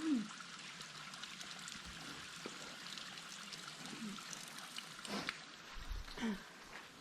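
Waterfall splashing and trickling steadily, with a few short calls sliding down in pitch over it, the loudest right at the start.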